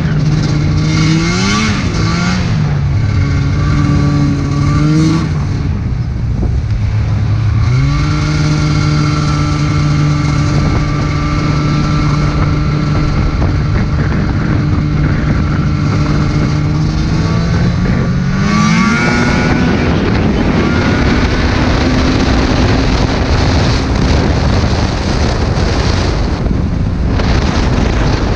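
Arctic Cat snowmobile engine running under throttle, its pitch rising and falling in the first few seconds, then held steady for about ten seconds before climbing again. After that it turns into a rougher, rushing noise.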